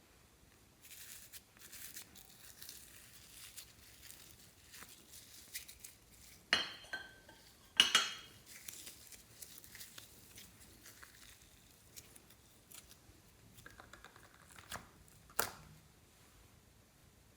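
Slime being handled and mixed, with soft crackling and a few sharp clicks or taps, the loudest about eight seconds in.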